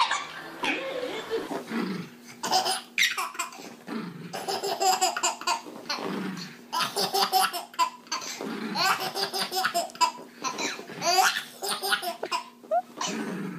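A baby laughing hard in repeated bursts, one fit of laughter after another.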